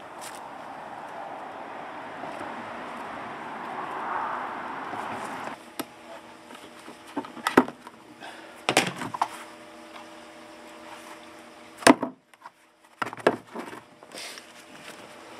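Snips cutting notches into a rigid black plastic nursery pot: a series of sharp snaps and cracks as the blades bite through the plastic, spaced a second or two apart, the loudest about a third and three quarters of the way through. Before them, a steady rushing noise for about the first five seconds.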